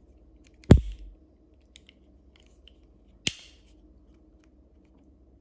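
Two sharp metallic clicks about two and a half seconds apart from the action of a double-barrelled folding-trigger pinfire pistol, the first louder with a dull knock under it, as its hammers and folding triggers are worked.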